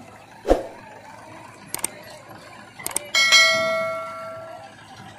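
A thump, then a few sharp clicks, then a loud metallic clang that rings on with several bell-like tones, fading over about a second and a half.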